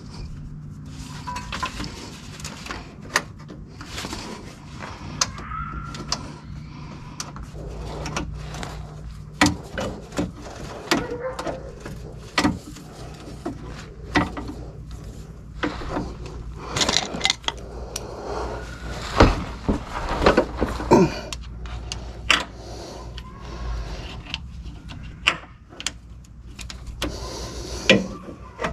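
Irregular clicks and knocks of hand tools and parts being handled during mechanical work, over a steady low hum; the knocks come thickest a little past the middle.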